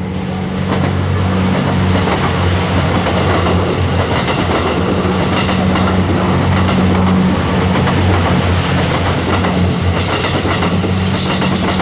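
Series 87 Twilight Express Mizukaze diesel-electric hybrid train passing close by, its engines humming steadily under the loud running noise of the wheels on the rails.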